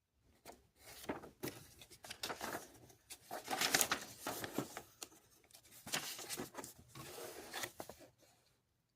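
Paper and plastic packaging being handled: irregular bursts of rustling and crinkling, loudest around the middle.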